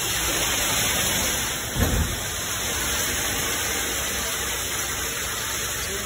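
Schwing 31XT concrete pump running on its first prime, with a steady hiss-like rush as concrete pours into the hopper through the grate. A single low thump comes about two seconds in.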